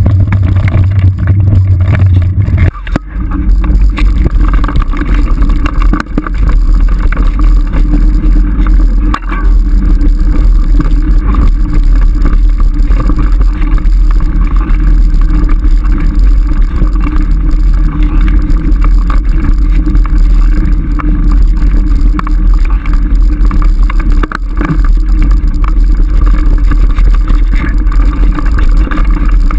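Loud, continuous ride noise picked up by a GoPro HD2 mounted on a saddle while riding a rough trail: low rumbling wind buffeting and vibration on the camera, with a few sharp knocks from bumps. The low rumble drops lower about three seconds in.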